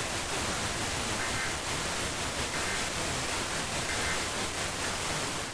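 Steady static hiss from a NOAA Weather Radio receiver, with three faint short two-tone data chirps just over a second apart: the SAME end-of-message bursts that close the alert. The audio cuts off with a sharp click at the very end.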